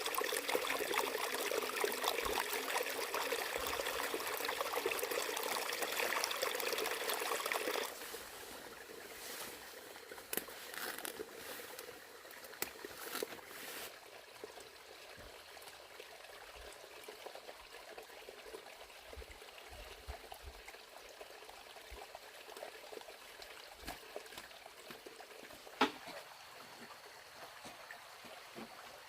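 Running water trickling steadily, louder for the first eight seconds, then a softer flow with scattered clicks and one sharp click near the end.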